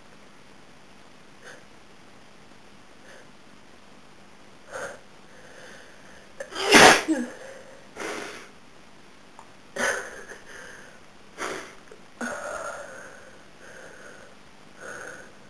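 A woman with a head cold sneezing, with one loud sneeze just before seven seconds in. Softer sniffs come before it, and several shorter sniffs and breaths follow it.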